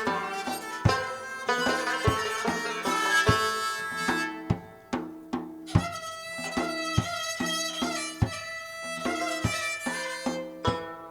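Live Pamiri folk music: plucked string instruments playing a melody over percussion strokes in a steady rhythm, the texture thinning briefly about halfway through.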